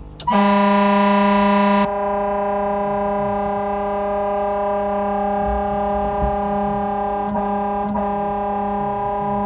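Truck-style air horn sounding a loud, steady blast that starts sharply just after the beginning. After about two seconds the sound turns duller as the camera microphone malfunctions, and the horn tone drones on steadily through the rest.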